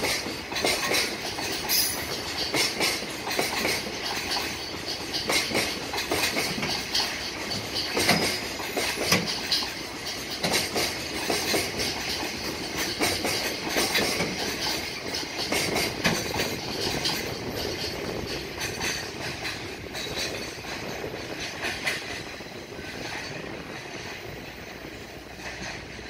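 Container flat wagons of a JR Freight train rolling past, wheels clattering over the rail joints in a continuous run of knocks. The sound drops away near the end as the last wagon passes.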